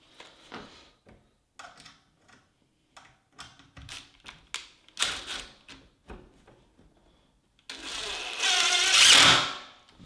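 Scattered light clicks and taps of a metal door hinge and screw being handled, then about two seconds of a DeWalt cordless drill-driver running as it drives a wood screw through the hinge leaf, growing louder before it stops shortly before the end.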